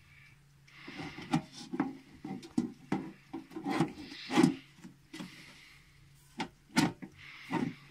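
Clear plastic lid of an electric seed propagator being fitted onto its tray: a run of irregular plastic knocks and clicks with rubbing scrapes between them. The loudest knocks come about halfway through and again near the end.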